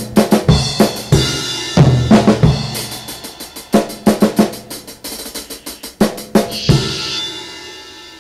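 Home-recorded bass-and-drums band music: fast, busy drum-kit playing over bass guitar, ending about two-thirds in on a cymbal crash that rings out and fades.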